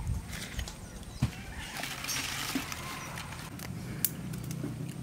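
Dry leaves and twigs crackling and rustling in a clay chulha as the fire catches, with scattered sharp clicks and a brief hiss about two seconds in, over a steady low hum.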